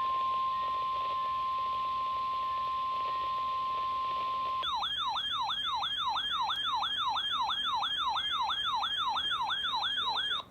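A steady 1050 Hz NOAA Weather Radio warning alarm tone for about four and a half seconds. It then gives way to a fast electronic siren alert that rises and falls about three times a second, which cuts off abruptly near the end.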